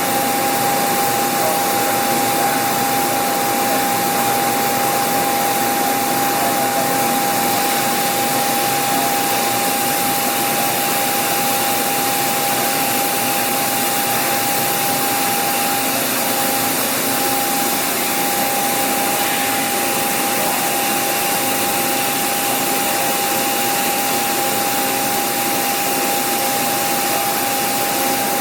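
Steady machinery noise: an even hiss with a constant whine running through it, unchanging throughout.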